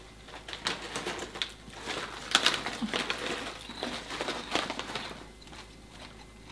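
Plastic snack bag of kettle corn crinkling and rustling as a hand reaches in for popcorn, in irregular crackles that are loudest a little over two seconds in and die down near the end.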